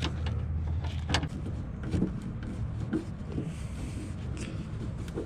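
Scattered light clicks and knocks of a car-door speaker and its mounting bolts being handled and fitted into the door panel, over a steady low rumble.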